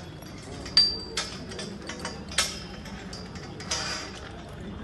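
Steel scaffold tubes and couplers clinking as a scaffold is fitted together: several sharp metallic clinks, some with a brief ring, and a quick run of clinks near the end.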